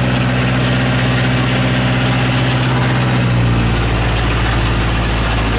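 A lifeboat engine running steadily just after a compressed-air start. About three seconds in, its speed drops slightly as it settles.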